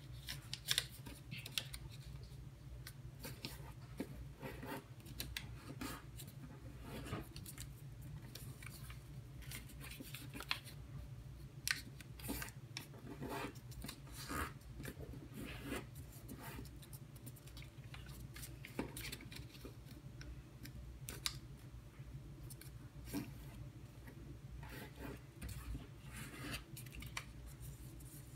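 Square of origami paper being folded and creased by hand: irregular crisp crackles, rustles and scrapes of paper under the fingers, over a steady low background hum.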